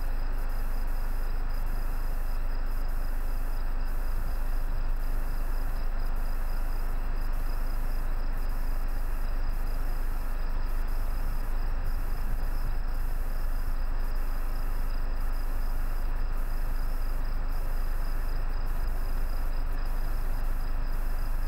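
Summer trackside ambience: insects keep up a steady, high, pulsing trill over a steady low rumble.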